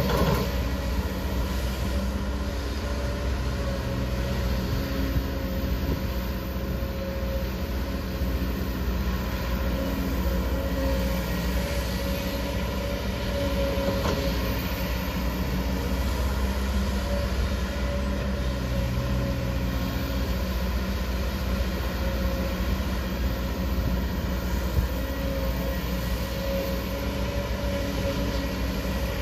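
Diesel engine of a 20-ton Kobelco excavator running steadily, with a tone that swells and fades every few seconds.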